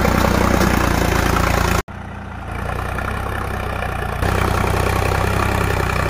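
Sonalika DI 745 III tractor's three-cylinder diesel engine running steadily while pulling a disc plough through soil. The sound cuts out for an instant about two seconds in, comes back quieter, and gets louder again about four seconds in.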